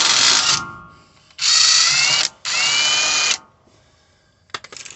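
Cordless impact wrench running in three bursts of about a second each, with a rising motor whine, undoing the 15 mm bolt at the outer end of a rear upper control arm. A few light metallic clicks follow near the end.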